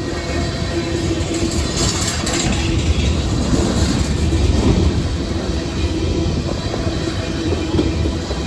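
Freight train tank cars passing close by at speed: a steady rumble and clatter of steel wheels on the rails.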